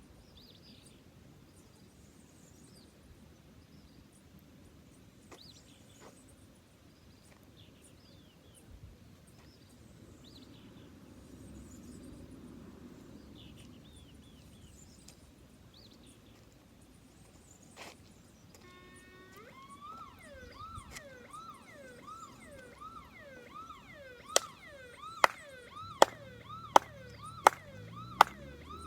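An electronic alarm starts about two-thirds of the way in: a repeated yelping tone, about one and a half a second. Near the end it is joined by loud, sharp beeps about every 0.7 s. Before it, only faint chirps over a quiet background.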